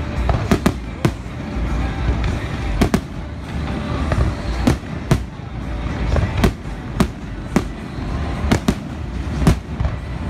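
Fireworks show: aerial firework shells bursting in an irregular string of sharp bangs, about two a second, over a steady low rumble.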